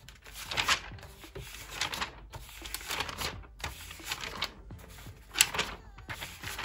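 Pages of a paper notebook being flipped over one after another: a string of short, papery flips and rustles.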